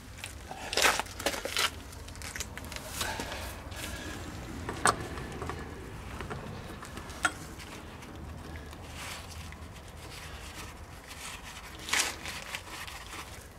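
Scattered clicks, clinks and scrapes of a long breaker bar and socket being worked on a car's front wheel hub nut and wheel bolts, with several sharper knocks along the way, among them one about a second in and one near the end.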